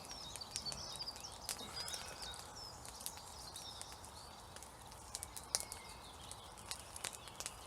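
Small birds chirping, mostly in the first few seconds, with a scatter of sharp clicks and crackles over a faint steady hiss.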